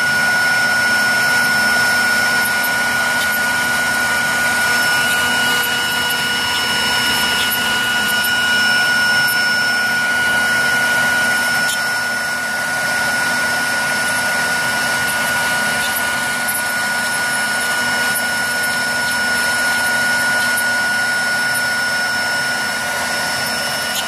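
CNC router spindle running with a steady high whine while its bit carves a relief into a wooden block, over a steady hiss of cutting.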